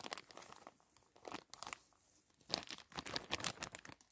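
Clear plastic bag crinkling and rustling as a hand packs moist peat moss into it, in irregular bursts with a short pause about halfway through.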